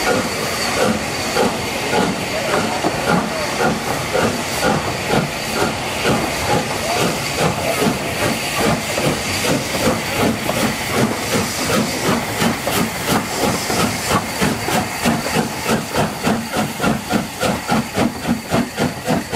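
Schools-class three-cylinder steam locomotive No. 925 Cheltenham pulling away with its train. Its exhaust beats grow stronger and quicken steadily as it gathers speed, reaching about three a second near the end, over a constant hiss of steam.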